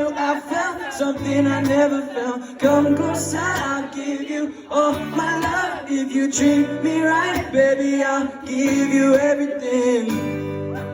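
A man singing a song over instrumental accompaniment, with sustained low chords under the melody.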